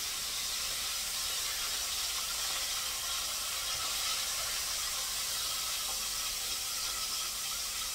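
Hot oil in an electric deep fryer sizzling steadily around whiting fillets, an even hiss. The frying has quieted down, which the cook takes as the sign that the fish is nearly done.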